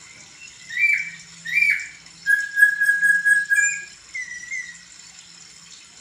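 A caged poksay (laughingthrush) singing loud whistled notes: two short notes, then a long steady whistle held for about a second and a half, then a few softer notes that die away about five seconds in.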